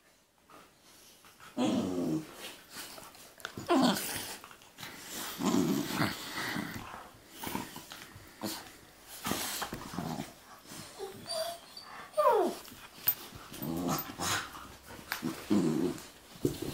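A golden retriever and a black Labrador puppy play-fighting: repeated rough play growls, with a couple of short falling whines and scuffling knocks.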